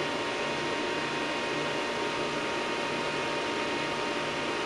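Cooling fans of bench test equipment running steadily, an even rushing noise with a faint steady whine over it.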